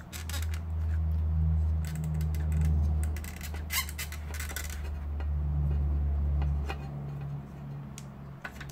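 Hands working a mains power cord's plug in the inlet socket of a computer power supply and pressing on its metal case: a low rumble that drops off near the end, with scattered clicks and rubbing of the plug and case.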